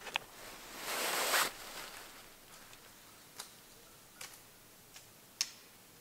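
A short rustle of clothing as arms are raised to lift binoculars, about a second in, followed by a few scattered sharp light ticks and clicks.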